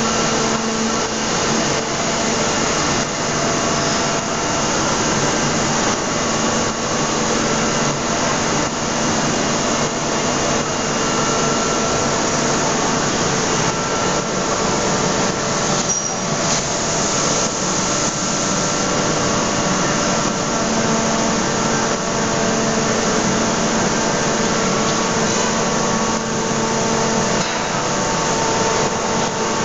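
Steady machinery noise of an aluminium wheel forging hydraulic press line: a continuous hiss with a low hum and a few held tones that come and go, at a constant level.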